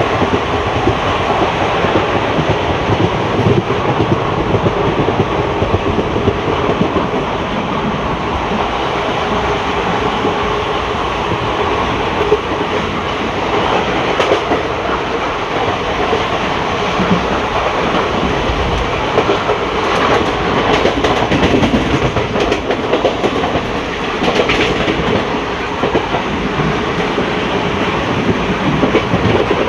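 Wheels of an ICF passenger coach running over the rails at speed, heard from inside the coach: a steady rumble and rattle with the clickety-clack of rail joints, and a few sharper clacks in the second half.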